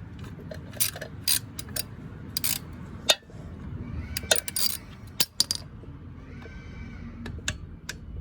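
Hand tools working a long bolt out of a dirt bike: irregular sharp metallic clicks and clinks of the wrench and bolt against the bike's metal parts.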